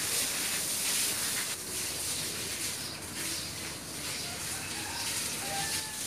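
Steady background hiss, with no clear single event.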